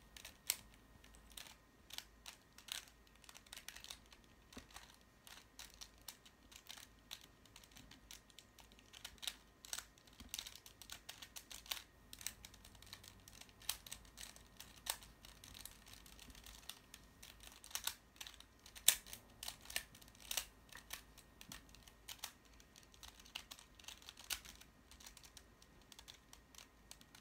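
Plastic twisty-puzzle cube being turned by hand: quick, irregular clacks of its layers snapping round, some louder than others.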